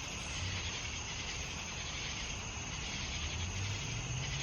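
Steady chorus of night insects such as crickets, a continuous high-pitched shrill, over a low hum.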